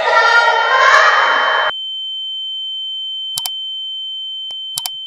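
Synthesized outro sound effects: a rising electronic sweep that cuts off about a second and a half in, leaving a steady high sine tone. Two quick double clicks of a mouse cursor sound later, from a like-and-subscribe button animation.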